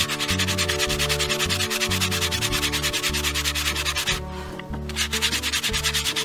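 Sandpaper rubbed over a carved walnut plate in quick, even strokes, with a short break a little past four seconds.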